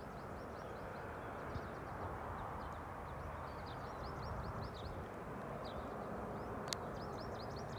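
Outdoor ambience: small birds chirping in many short, quick notes over a steady low rush, with one sharp click about two-thirds of the way through.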